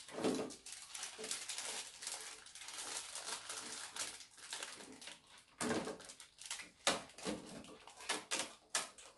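Thin plastic bread wrappers and a plastic container being handled and crinkled: dense rustling with many small clicks and crackles, easing off briefly around the middle before picking up again.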